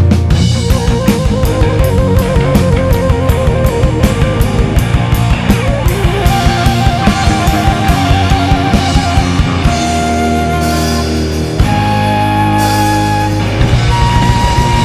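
Instrumental rock ballad played by a band: a drum kit keeps a steady beat under guitar, while a lead line plays long held notes with vibrato, moving up in pitch about halfway through.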